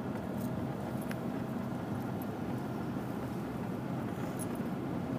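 Steady low rumble of a Dodge Ram 2500's Cummins turbo diesel engine running, heard from inside the truck's cab.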